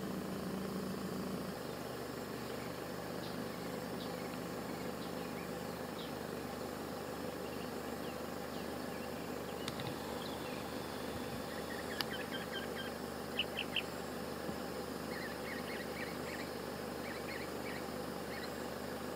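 Outdoor ambience: a steady hiss with a low hum, and in the second half several runs of short, high bird chirps.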